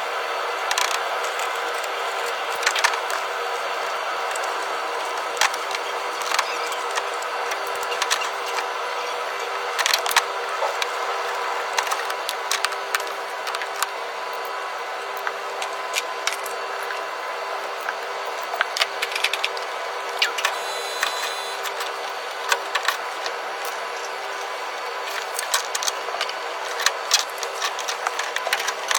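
A steady machine hum with a few held tones, over which irregular sharp clicks and knocks sound throughout.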